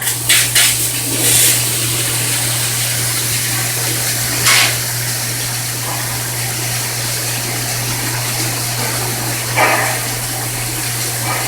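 CNC machining centre running with flood coolant: a steady low machine hum under a constant rush of liquid, broken by a few short louder bursts.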